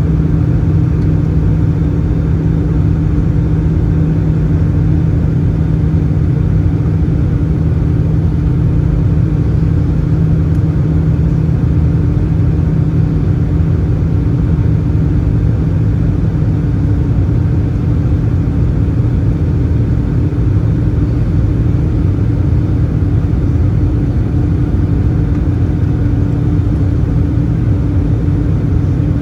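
Steady cabin drone inside an Airbus A320-214 heard from a seat over the wing: the CFM56 turbofan engines and airflow make a constant low rumble with a steady hum in it, unchanging throughout.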